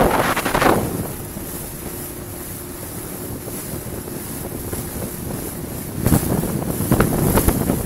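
Small open boat's outboard motor running under way, a steady hum under wind buffeting the microphone and water rushing past the hull. The wind and water noise swells louder in the first second and again over the last two seconds.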